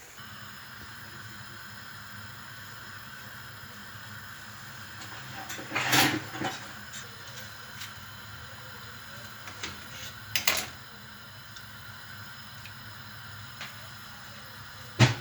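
Pot of herbal tisane simmering on the stove, a steady low hiss, with two short rushing noises about 6 and 10½ seconds in and a sharp click at the very end.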